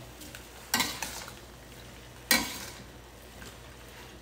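Stir-fry of pork and shredded vegetables sizzling lightly in a stainless steel wok while being tossed. Two sharp scrapes of the metal spatula against the wok come about a second in and just past two seconds.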